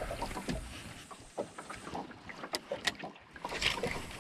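Water slapping against the hull of a small boat drifting at sea, with wind on the microphone and scattered light clicks and knocks.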